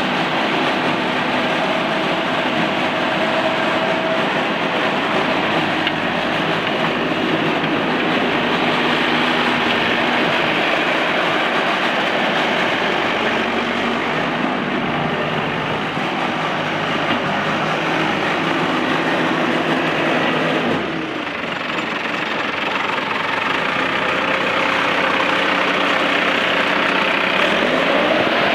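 Case 95XT skid steer's diesel engine running steadily, with a brief dip in level about twenty seconds in.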